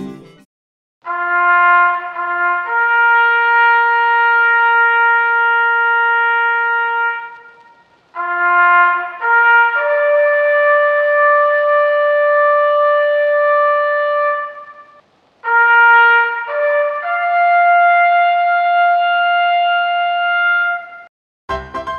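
Music: a trumpet-like brass tone plays three rising calls. Each call steps up through one or two short notes to a long held note, and each call starts and ends higher than the one before.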